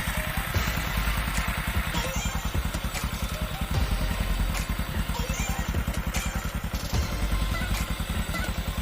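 Honda Supra X 125's single-cylinder four-stroke engine idling steadily with an even firing beat, warming up after a top-end rebuild with a new piston.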